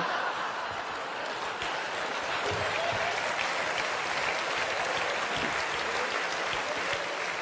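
Large seated audience applauding steadily, with scattered laughter mixed in.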